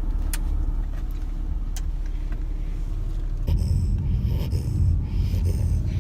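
Steady low rumble of a car driving, heard from inside the cabin, with a couple of small clicks early on. About three and a half seconds in, the rumble grows louder and a pulsing hiss joins it.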